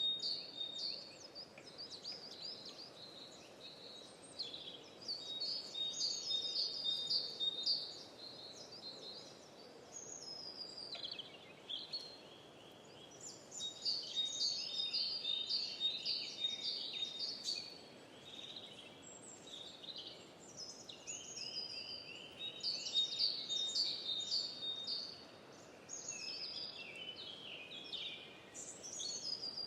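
Songbirds singing in phrases of a few seconds: high, rapid repeated chirping notes that come and go, over a faint steady background hiss.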